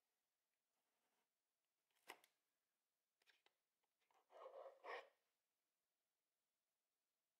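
Faint packaging handling: a sharp tap about two seconds in, a few light clicks, then about a second of scraping and rustling as a dark glass jar with its lid is pulled out of its cardboard box insert.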